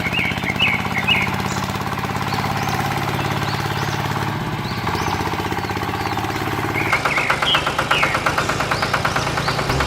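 Tractor engine running steadily, then a faster, rattling pulse sets in about seven seconds in. Short bird chirps sound over it at the start and again near the end.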